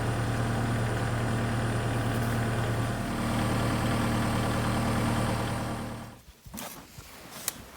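Farm tractor engine idling steadily, then dying away about six seconds in as it stops. A few sharp clicks and knocks follow.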